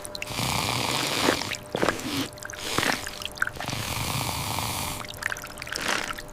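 Wet, watery noise: a hiss like rain with drips and squelches, coming in several stretches broken by short gaps, with a few sharp knocks.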